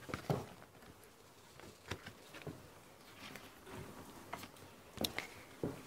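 Faint scattered taps and rustles in a quiet lecture room: footsteps on the floor and a felt-tip marker writing on flipchart paper.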